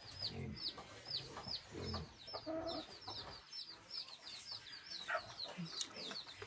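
Domestic chickens: a steady run of short, high, falling peeps, about three or four a second, with a few low clucks among them.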